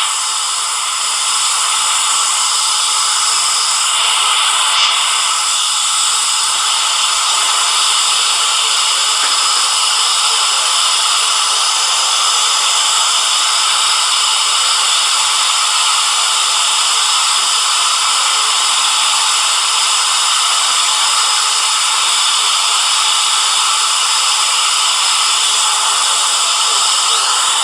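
Sound effect for the 4ormulator V32: a steady, loud hiss like static, bright and hollow-toned, that doesn't change.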